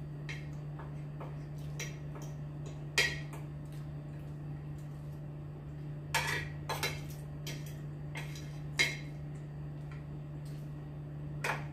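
Spoon and fork clinking and scraping against a plate while eating, with a few sharper clinks about 3, 6 and 9 seconds in and again near the end, over a steady low hum.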